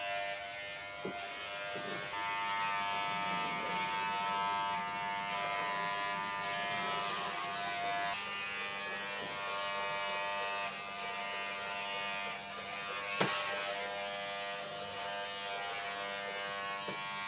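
Corded WAHL electric pet clipper buzzing steadily as it shaves a small dog's long coat, its tone shifting a little a few times as the blades work through the fur. A brief click about thirteen seconds in.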